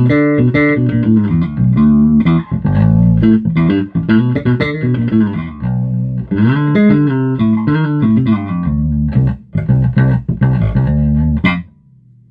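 Electric bass played through an Aguilar Tone Hammer 500 bass amp head with its drive knob turned up, giving a clean, tight tone with a little saturation but no real distortion. The playing stops abruptly near the end, leaving a faint amp hum.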